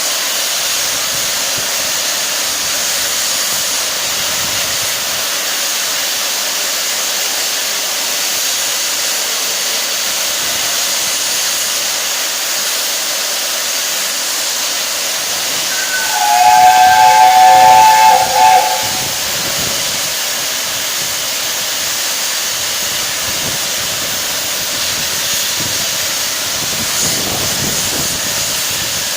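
Steam hissing steadily from LNER Peppercorn A1 Pacific steam locomotive 60163 Tornado. About halfway through, its whistle sounds a loud chord of several notes for about two and a half seconds.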